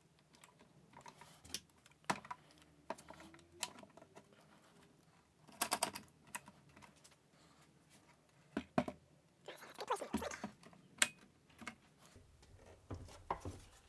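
Irregular small clicks and knocks of wooden splines and clamps being handled and set while gluing up a wooden case, with a quick run of clicks near the middle and another busier spell toward the end.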